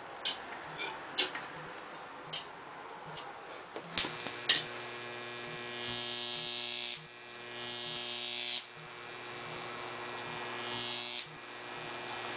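Electric arc across the copper wires of a homemade Jacob's ladder fed by a neon sign transformer: after two sharp snaps about four seconds in it settles into a steady buzz, with a hissing crackle that swells three times before the buzz stops about eleven seconds in.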